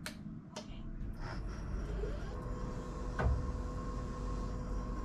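Navien NPE-240A tankless water heater starting its built-in recirculation pump on a remote trigger. A few sharp clicks, then a steady low hum, with a steady tone added about two seconds in.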